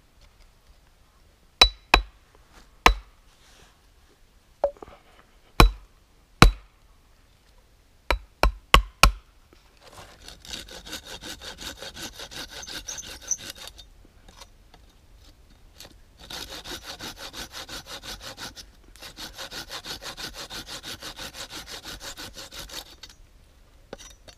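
About ten sharp wooden knocks in the first nine seconds as stick legs are driven into holes in a log stool. Then a curved folding pruning saw cuts through a stool leg in three bouts of quick back-and-forth strokes.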